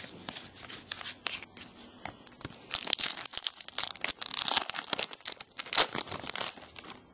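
A trading card pack's wrapper being torn open and crinkled by hand, a dense run of crackling rustles that is busiest in the middle.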